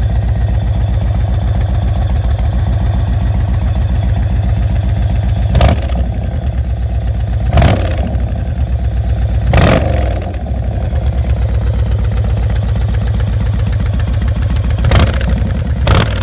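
2012 Yamaha Raider's large V-twin engine idling with a steady beat, cut in about five times from about a third of the way in by a brief, sharp surge, most likely quick blips of the throttle.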